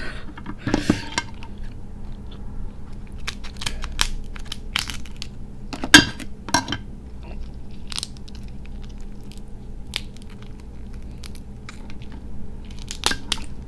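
Cooked crab shell being cracked and pulled apart by hand: a scattered series of sharp cracks and snaps, the loudest about six seconds in.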